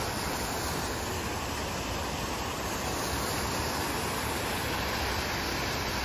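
Steady rush of water pouring off water slides and splashing into the pools.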